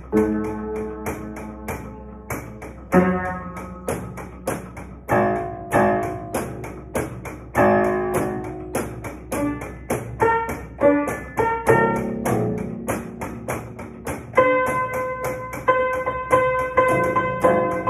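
An old converted player piano, untuned for decades and lacking a working sustain pedal, played in a fast improvisation of quick runs of notes. Near the end, one chord is struck over and over several times a second.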